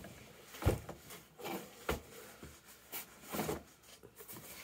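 A cardboard shipping box being pulled and torn open by hand: scattered rustling with several short, sharp cardboard knocks and scrapes.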